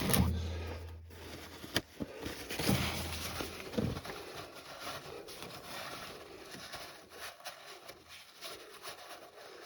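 Rustling and scraping of hands wiping spilled hydraulic oil off a mini excavator, with a few sharp clicks and knocks. A low hum runs under it for about the first four seconds, then stops.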